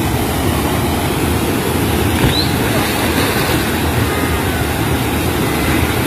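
Waterfall and weir cascade rushing into a pool, a loud steady wash of water noise, with a faint short rising whistle about two seconds in.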